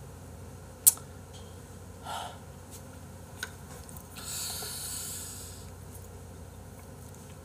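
Sharp clicks of wooden chopsticks on the food trays, the loudest just under a second in, and a breathy snort through the nose lasting about a second and a half, starting about four seconds in.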